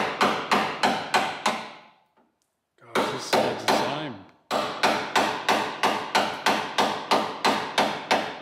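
Hammer blows driving a chisel into thick body filler on a car's steel body panel, chipping the old filler out. About four sharp strikes a second, in two runs with a break of about two seconds in the middle.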